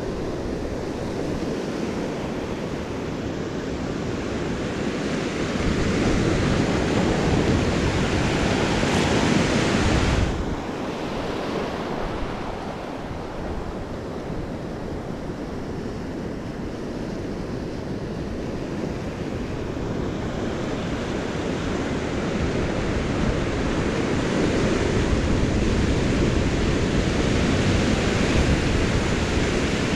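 Ocean surf breaking and washing over the sand, with wind rumbling on the microphone. The wash swells louder twice, the first swell ending suddenly about ten seconds in.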